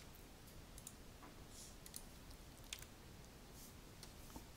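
Faint, irregular clicks of a computer mouse and keyboard keys, a handful of single clicks over quiet room tone.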